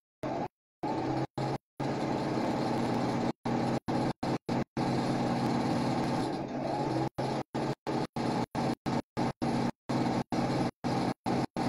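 Domestic electric sewing machine running steadily as it stitches a seam through lining fabric, a motor hum broken by many brief, complete dropouts in the sound.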